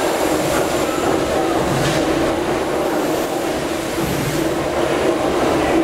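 Gimson Woolf compound rotative steam beam engines running together: a steady, loud mechanical working noise with a low pulse that recurs every second or two.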